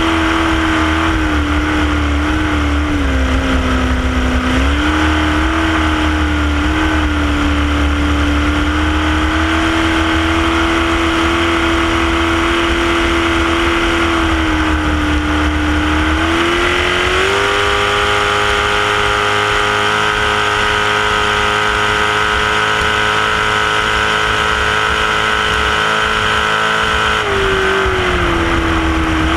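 Small racing powerboat's engine running hard at speed, heard from on board with rushing water and wind. Its pitch dips briefly a few seconds in, climbs about halfway through and holds higher, then drops back near the end.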